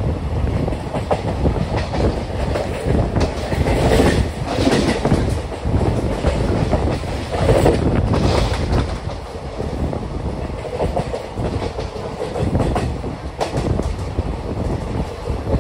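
Moving Intercity Express passenger train heard from the open coach side, its wheels rolling and clattering over rail joints and points. There are runs of clatter about four seconds in and again around eight seconds in.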